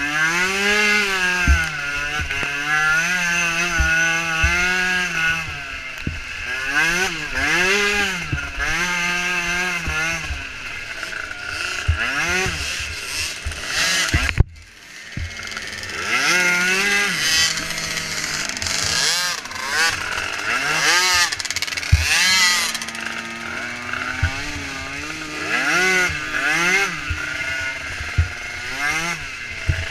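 Small micro ATV engines racing, their pitch rising and falling again and again as the throttle is worked. The sound breaks off abruptly about halfway through and picks up again.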